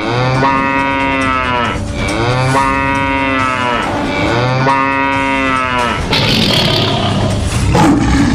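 Three long bovine bellows in a row, each rising and then falling away, played loud as a sound effect; after about six seconds a louder rushing noise takes over.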